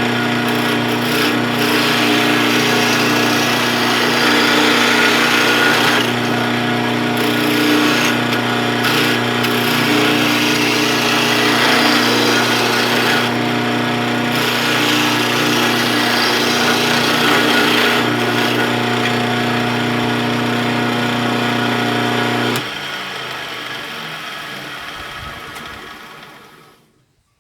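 Wood lathe running with a steady motor hum while a turning tool cuts the spinning wood, the cutting hiss growing and easing. Near the end the motor is switched off and the lathe winds down and fades out.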